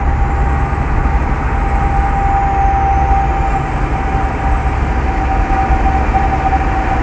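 Steady, heavy rumble of a vehicle running along a highway, with a constant whine held at one pitch throughout.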